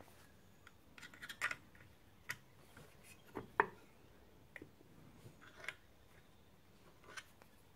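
Scattered sharp metallic clicks and scrapes of vice grips and a small spanner on a brake booster's push rod, as the domed adjusting nut, tight on its threads, is worked to turn while the rod is held still. The loudest click comes about three and a half seconds in.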